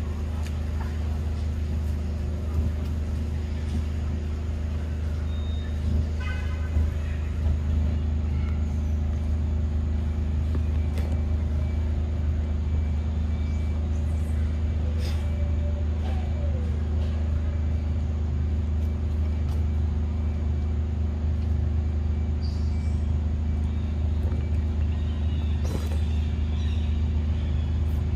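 A steady low motor hum with a few fixed tones above it, like an engine running at an even speed, with a few faint clicks and a short falling call over it.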